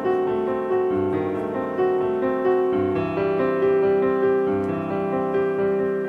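Background piano music: held, overlapping notes and chords.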